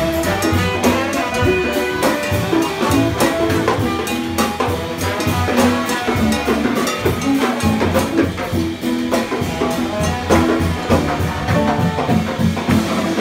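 Live jazz band playing full out: tenor saxophone and trombone over a drum kit, congas and upright bass, with frequent drum hits.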